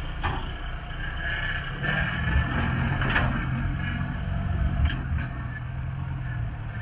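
Lifted off-road truck's engine running at low revs as the truck crawls down a steep dirt slope, swelling a little about two seconds in, with a few sharp knocks from the tyres and suspension on the rocky ground.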